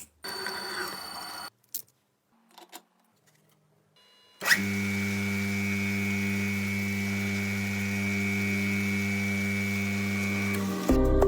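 An old bench grinder's electric motor comes on with a sudden start a little under halfway in and runs steadily with a low hum and a higher whine, cutting off abruptly near the end. Before it, only a few faint clinks and short quiet gaps.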